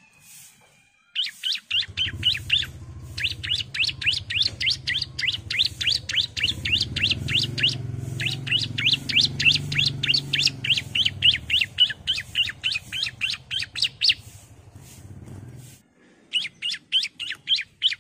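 Bar-winged prinia (ciblek) singing: long runs of rapid, sharp, repeated notes, about seven a second, broken by short pauses into several bursts. A low hum sits underneath for most of the time and stops a couple of seconds before the end.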